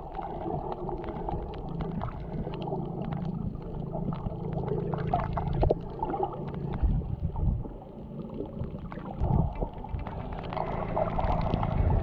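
Muffled underwater sound picked up by a camera below the surface while snorkeling over a reef: a dull rush of water with gurgles and many small scattered clicks.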